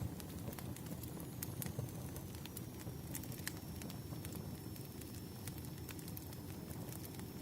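Wood fire crackling: a steady low rush of burning logs with scattered sharp pops and snaps.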